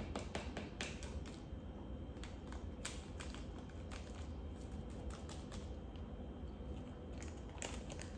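Faint, irregular clicks and crinkles of a small plastic bag of glitter being handled and tipped over a plastic cup.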